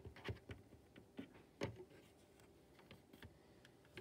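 Faint, scattered clicks and taps of small plastic toy figures being handled and set down on Lego bricks, about half a dozen light knocks.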